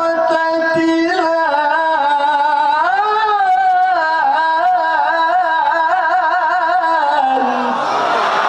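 A male qari reciting the Qur'an in tilawah style, drawing the end of the word "rajulayn" out into one long melismatic phrase. He holds the notes and bends them with wavering ornaments. About seven seconds in, the voice gives way to a wash of noise.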